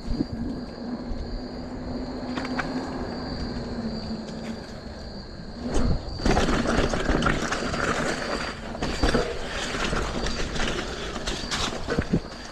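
Mountain bike being ridden down a dirt singletrack, heard from the bike-mounted camera: tyres rolling with a steady hum at first, then from about six seconds in loud rattling and knocking as the bike goes over roots and rocks.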